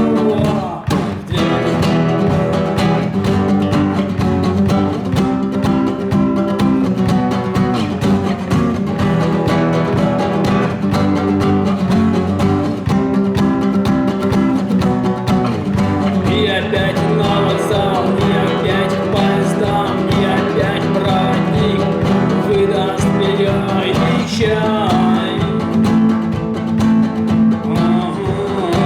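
Guitar and drum kit playing a rock song together, with a steady beat. About halfway through the sound turns brighter and fuller.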